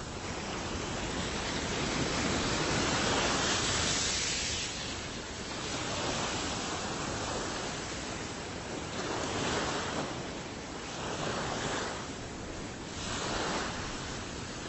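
Ocean waves washing onto a shore: a continuous rush of surf, with a large wave swelling up about two to four seconds in and several smaller surges following.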